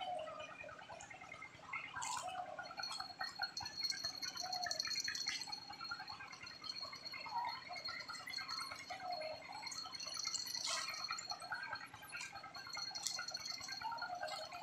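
River water gurgling and dripping at the bank's edge: many short, irregular plinks and bubbling sounds, with a thin steady high-pitched whine from about three seconds in.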